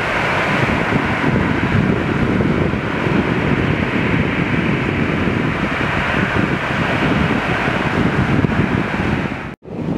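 Wind buffeting the microphone: a loud, steady rushing noise that cuts out for an instant near the end.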